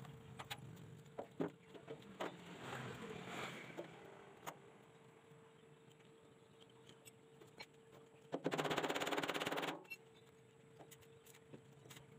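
Electric arc welding: one burst of about a second and a half, a dense, even crackle, a little past the middle. Before it, scattered light taps and knocks, over a faint steady hum.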